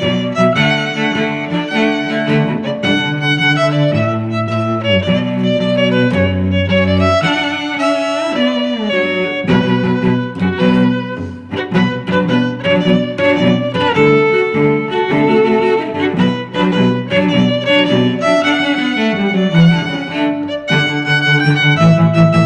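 Background music played on bowed strings, violin with cello beneath, moving through a flowing melody.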